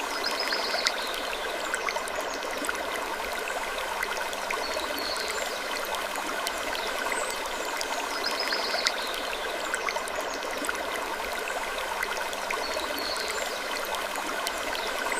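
Creaking-wood sleep ambience: a steady rushing hiss with a short creak recurring about every two and a half seconds and scattered small clicks.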